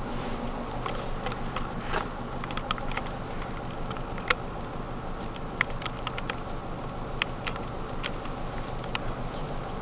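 Scattered light ticks and taps, irregular and a few to the second, over the steady low hum of a car engine idling, heard from inside the car.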